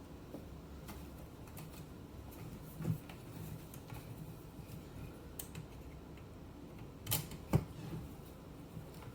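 Small clicks and knocks of Automatic Electric Type 90 telephone parts being handled and fitted back together, with a louder knock about three seconds in and two more a little after seven seconds.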